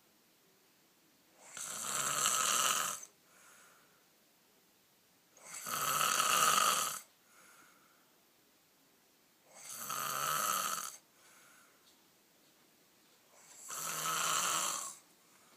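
A man snoring steadily: four loud snores, each about a second and a half long and about four seconds apart, with a faint breath between each.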